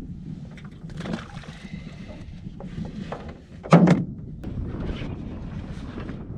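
Wind buffeting the microphone in a small boat on a lake, with scattered small knocks and one loud thump a little past the middle.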